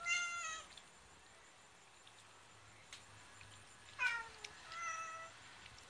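Domestic cat meowing three times: one short meow at the start, then a meow falling in pitch about four seconds in, followed quickly by another short meow.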